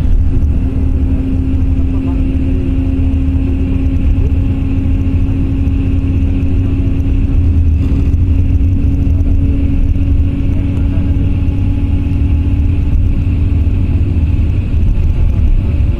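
Steady road noise inside a moving vehicle on a wet highway: a continuous low rumble of engine and tyres with a steady hum over it.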